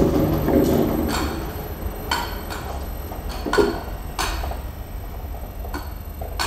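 Sparse, irregular sharp clicks and light knocks, roughly one a second, over a low steady hum, with a short low ping a little past halfway.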